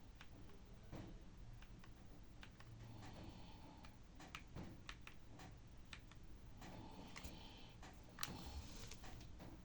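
Monsgeek ICE75 mechanical keyboard with Akko Crystal linear switches being typed on, a few scattered keystrokes a second, with a slightly clacky sound.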